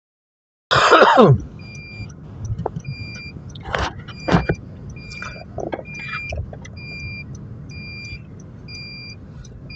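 Electronic beeping, one two-tone beep about every two-thirds of a second, over the low rumble of a vehicle cabin, with a few knocks and rustles. It opens with a loud, short burst that falls in pitch.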